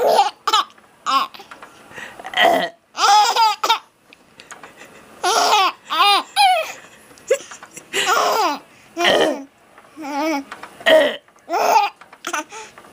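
Four-month-old baby laughing hard in a dozen or more short, high-pitched bursts, set off by burping sounds.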